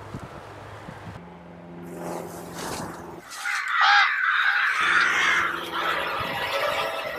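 A flock of crows cawing, rising suddenly to a loud mass of calls about three seconds in, then carrying on more thinly, over a low steady drone.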